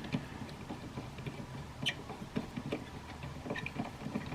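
Light, irregular metal clicks and ticks of a screwdriver with a tamper-resistant Torx bit driving screws into a mass airflow sensor's plastic housing.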